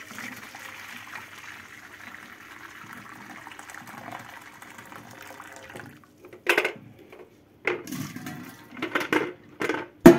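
Hot water poured from a kettle into a stainless steel bowl, a steady splashing pour that stops about six seconds in. Then several separate knocks and clanks as the kettle and steel bowl are handled over a steel sink, the last one ringing briefly.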